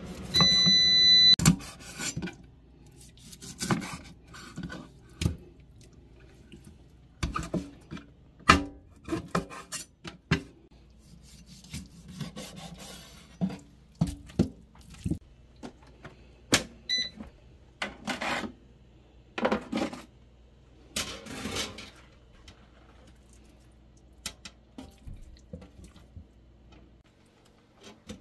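Scattered knocks and clatters of kitchen prep: a cleaver chopping raw chicken wings on a bamboo cutting board, and wet wings handled and dropped in a stainless steel sink. An electronic appliance beep sounds at the start and briefly again about two thirds of the way in.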